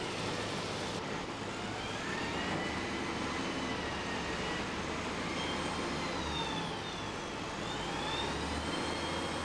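Cargo-handling machinery unloading bulk goods at a harbour quay: a steady mechanical noise with a low hum and whining tones that slowly rise and fall.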